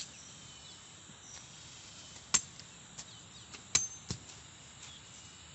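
A machete knocking against bamboo stakes: a few sharp knocks, the loudest about two and a half and nearly four seconds in, one with a brief metallic ring. Under them is a steady hiss of insects with faint bird chirps.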